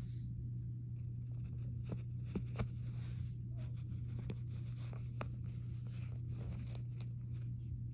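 Small plastic Lego pieces being handled and fitted together: scattered light clicks and scraping, with two sharper clicks about two and a half seconds in, over a steady low hum.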